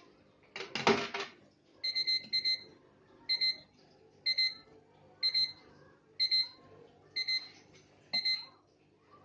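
Coin-operated water vending machine's electronic beeper sounding short high beeps in clusters about once a second, seven times, while the machine dispenses water on its timer. A short loud clatter comes about half a second in, right after a coin is fed into the coin acceptor.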